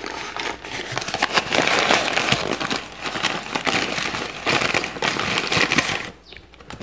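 Brown paper crumpled and rubbed in the hands close to the microphone: a dense, steady crinkling and crackling that eases off about six seconds in.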